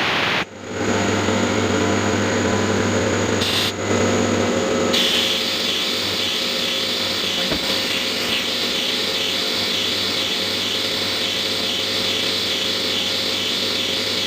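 CNC milling machine running, its spindle and cutter machining a workpiece with a steady whine and cutting noise. The sound briefly drops out about half a second in and changes character about five seconds in.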